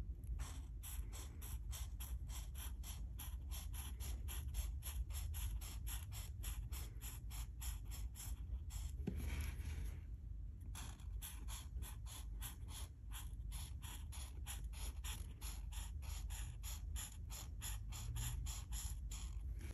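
Alcohol marker nib scratching quickly back and forth on colouring-book paper, short strokes at about three to four a second, with a brief break a little before halfway.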